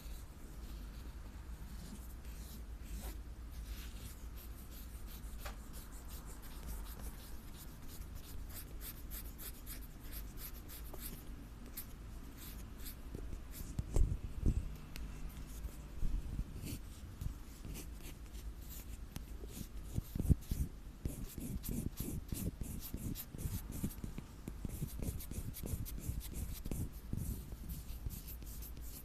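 Close-miked ASMR scratching and rubbing on an object's surface: a dense, continuous run of fine scratchy ticks, with a few louder bumps of handling about halfway through and again a little later.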